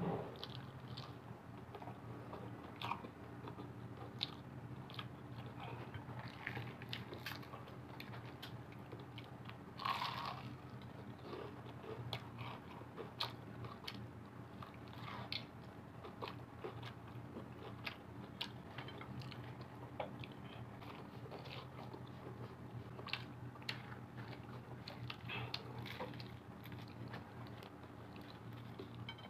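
Close-up biting and chewing of crispy broasted chicken: the fried breading crunches and crackles in many short bites, with a louder crunch about ten seconds in. A steady low hum runs underneath.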